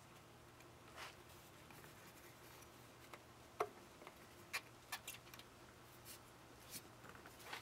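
Near silence broken by a handful of faint, scattered clicks and taps: metal hose clamps and a rubber radiator hose being handled and fitted by hand.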